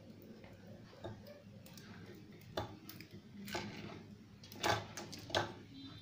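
Handling noise of a coiled charging cable being unwrapped from its twist tie: scattered small clicks and rustles, with two louder taps near the end.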